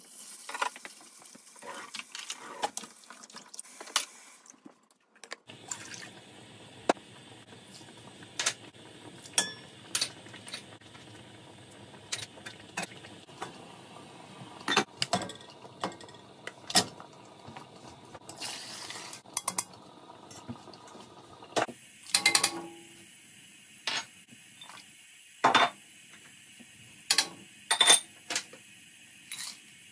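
Kitchen cooking sounds. Chana dal rattles and swishes as it is handled in a bowl with a spoon. Then comes a steady hiss of a pot at a rolling boil with occasional utensil clinks, and from about two-thirds of the way in, a string of sharp clinks and knocks as ingredients and a spoon hit a stainless steel pot.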